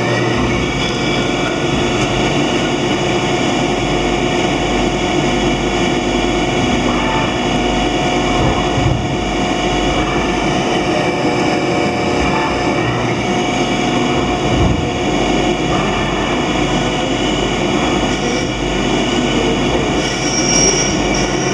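Mori Seiki CNC lathe running while machining parts: a steady, loud mechanical noise with several steady whining tones, and a couple of brief clunks about nine and fifteen seconds in.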